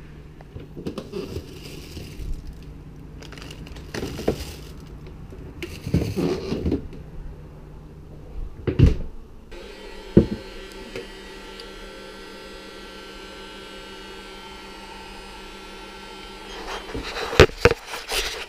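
Knocks and clatter of metal parts being handled, then a steady hum from about ten seconds in, and more knocks near the end.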